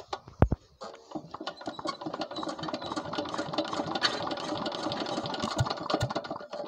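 A 16 hp KAM single-cylinder diesel engine ('Peter' engine) starting: one loud thump about half a second in, then the engine catches and runs with a fast, even clatter.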